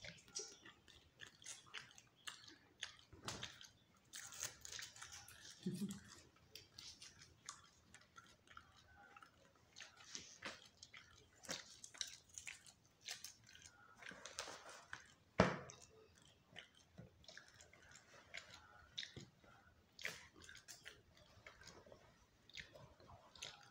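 Faint, irregular crinkling of a plastic bag and rustling of fabric as clothes are unpacked and handled, with one sharper snap about fifteen seconds in.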